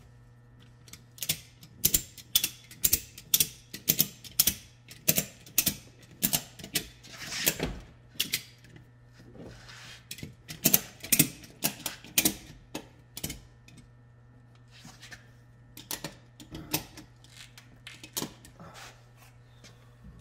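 Ratchet strap buckle being cranked, its pawl clicking about two times a second in runs, with a pause in between. The strap is being tightened to pull on a tab glued to a dented car body panel.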